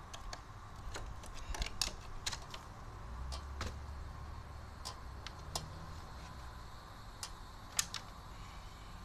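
Irregular clicks and snaps as a plastic hubcap is pried off a steel wheel with a screwdriver, then a few scattered taps of metal tools.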